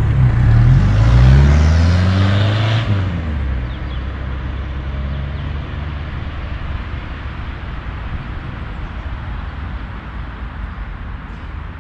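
1977 Renault 5 engine accelerating, its pitch rising for about three seconds. It then drops away into a steady rumble of engine and road noise that slowly fades.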